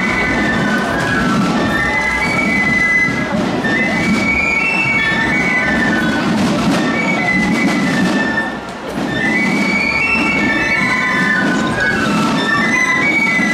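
Basel Fasnacht piccolos played by a marching clique: shrill, high melody lines in unison, with a dense low rumble of the street beneath. The tune breaks off briefly about two-thirds of the way through, then resumes.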